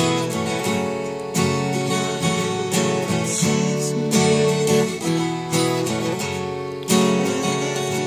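Acoustic guitar strummed, chords ringing between strokes.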